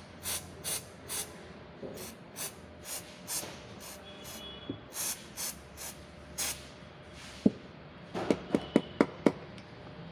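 Aerosol electronics contact cleaner sprayed in about a dozen short hissing bursts into an electric scooter's opened hand-throttle housing to flush out dust. Near the end, one sharp click and then a quick run of about five sharp clicks.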